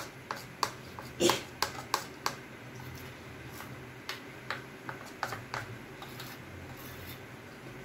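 A metal spoon stirring thick gram-flour dhokla batter in a stainless steel bowl, clinking against the bowl in irregular sharp clicks, the loudest about a second in. The batter is being mixed after baking soda and citric acid were added to make it rise.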